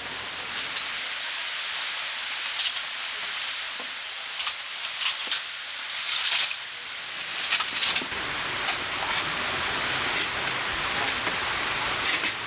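Steady rain falling, an even hiss with scattered sharper drop hits striking a nearby surface.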